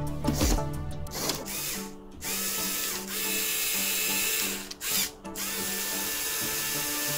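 Small electric motor and plastic gear train of a Lego Technic walking machine running with a steady whir. The whir starts about two seconds in and cuts out briefly near the five-second mark, over background music.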